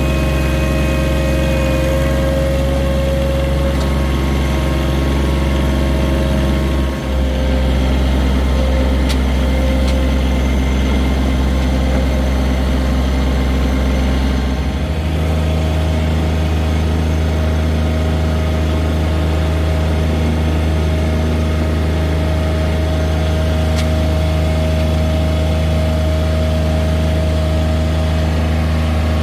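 John Deere 1023E compact tractor's three-cylinder diesel engine running steadily. Its sound dips briefly about seven seconds in, and its note changes about halfway through.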